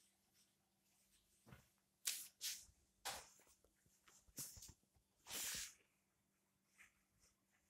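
Clear plastic film wrapped around a new gas stove rustling and crinkling in several short bursts, the longest about five seconds in.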